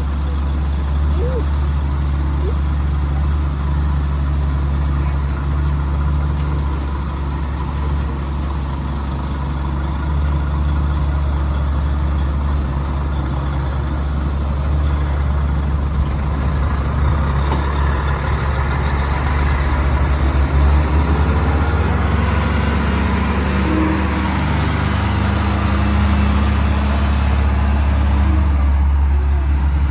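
Concrete mixer truck's diesel engine running steadily, with a deep constant drone. It grows louder and fuller a little past halfway.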